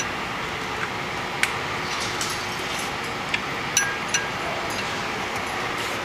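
Dane Technologies PowerPal 1000 battery-powered cart tugger running, a steady mechanical whir with a few sharp metallic clinks as it moves.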